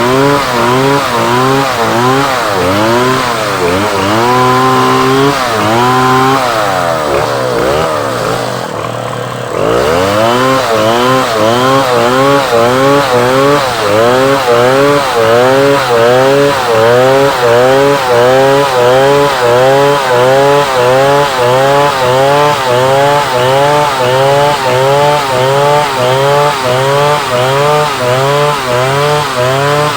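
Two-stroke chainsaw cutting through a large log, its engine pitch rising and falling rhythmically about one and a half times a second as the chain bites and bogs with each stroke of the cut. A few seconds in it revs higher twice. About eight seconds in it drops briefly toward idle, then comes back up and resumes its steady cutting rhythm.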